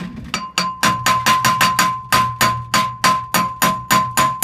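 Hammer tapping a new wheel bearing race into the brake disc hub of a VW T3 Vanagon with light, rapid blows, about four a second. Each strike leaves a short, clear metallic ring.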